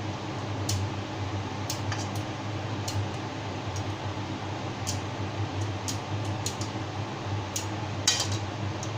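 Utensils clinking against cookware: about ten short, sharp clicks, the loudest near the end, over a steady low hum.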